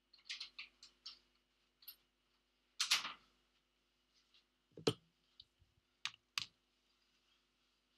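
Quiet handling sounds on a workbench: a quick run of light clicks, a short rustle, then a single knock and two sharp clicks as a phone is set down on the mat.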